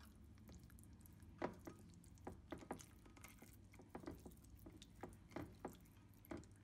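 Near silence, with faint, soft wet squishes and clicks of a hand rubbing oily marinade over raw chicken breasts in a glass baking dish.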